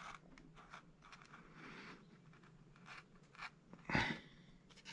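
A metal sculpting tool scraping and pressing into a strip of sculpting wax on a wooden board, faint scratches and light ticks, with one louder tap about four seconds in.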